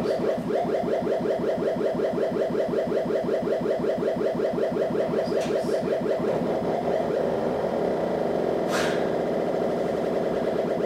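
Modular synthesizer playing a fast, steadily repeating pulsed tone, its pattern shifting about seven seconds in, with a short burst of hiss about nine seconds in.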